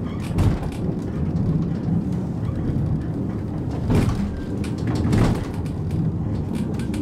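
Victorian cliff funicular car rumbling steadily as it climbs its rails, with a few louder knocks about half a second, four and five seconds in.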